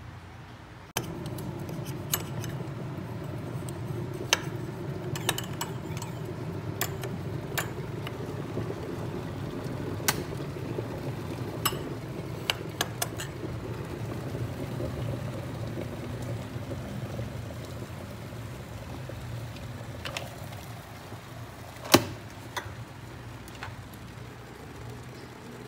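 Glass electric kettle heating water: a steady low rumble and hiss starts suddenly about a second in and slowly eases later on. Light clicks and taps are scattered throughout, with one loud sharp click near the end.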